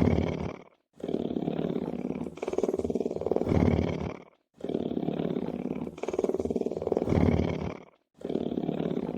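Lion's rumbling purr: a low, rapidly pulsing rumble in stretches of a few seconds. Each stretch ends in a brief silence, and the same stretch repeats about every three and a half seconds.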